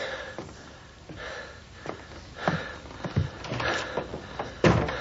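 A few short breathy sniffs about a second apart, with soft knocks and a louder thump near the end.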